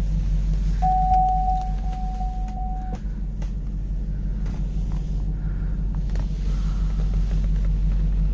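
2006 Hummer's engine idling: a steady low rumble. A steady high tone sounds for about two seconds near the start.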